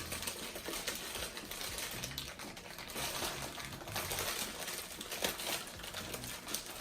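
Snack packaging being worked and torn open by hand: steady crinkling and rustling with many small clicks and crackles.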